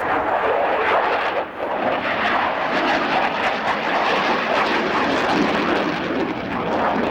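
Fixed-wing aircraft flying past: a loud, steady engine noise with no let-up.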